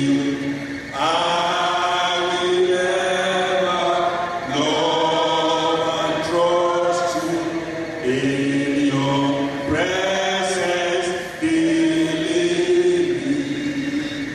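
A man's voice singing a slow worship song through a microphone, holding long notes in phrases of three to four seconds with short breaks between them.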